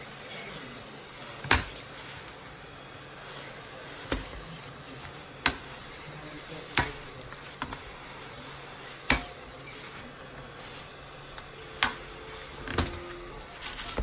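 Heat gun blowing steadily while a laptop keyboard's plastic and metal parts are pressed and pried, giving about eight sharp clicks at irregular intervals of one to three seconds.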